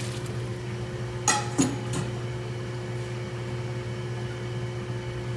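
Fried tofu cubes tipped from a metal bowl into a stainless steel stockpot of broth. A few sharp clinks and knocks of metal on metal come in the first two seconds, one with a short ring, over a steady mechanical hum.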